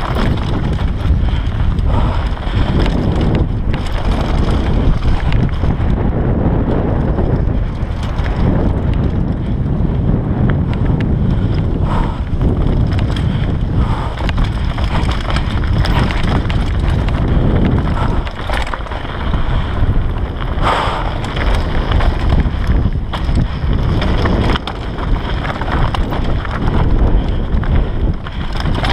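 Wind buffeting the camera microphone on a Bergamont Big Air 6.1 downhill mountain bike running fast down a dirt trail. Under it are the steady rumble of the tyres on dirt and stones and frequent clattering knocks from the bike's chain and frame over bumps.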